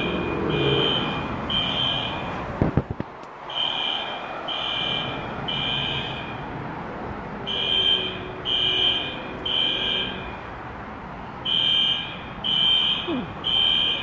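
Building fire alarm sounding in the temporal-three evacuation pattern: groups of three high beeps, each about half a second long, with a longer pause between groups, four groups in all. The speaker thinks somebody pulled a manual pull station, since no smoke is seen. A few knocks come about two and a half seconds in.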